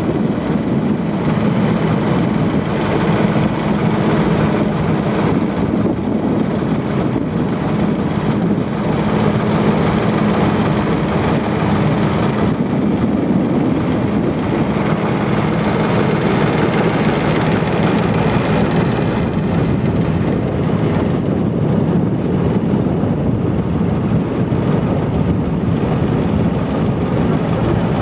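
Small motor boat's engine running steadily underway, a constant low drone with the rush of water and wind over it.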